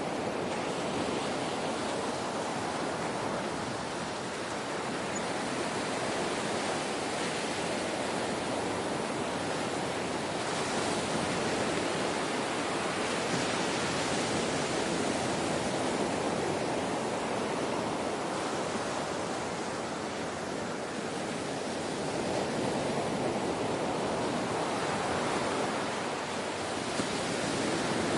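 Ocean surf washing in a steady rush, swelling and easing slowly every several seconds with no sharp breaks.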